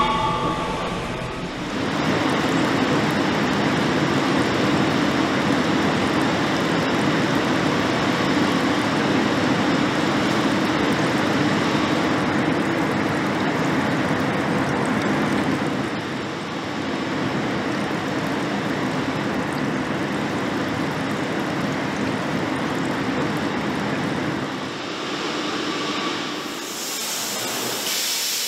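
Steady rumbling machinery noise of a car plant's production line, shifting in character a couple of times. Near the end a loud hiss of air joins in.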